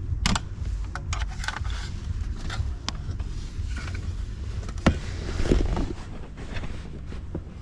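Scattered clicks and knocks of hands and a tool working the factory multimedia unit's plastic parts and cable connectors as they are unplugged, with one sharp knock about five seconds in, over a steady low rumble.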